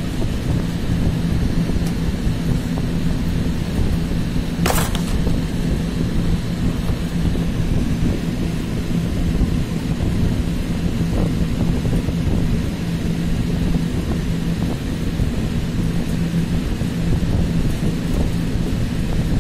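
Steady low rumbling background noise with a constant hum. A single sharp click of the clear plastic clamshell tray comes about five seconds in, as the portable hard drive is pried out of it.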